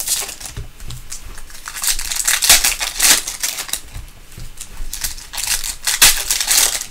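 Foil wrappers of trading-card packs crinkling and rustling in irregular bursts as hands tear them open and handle them.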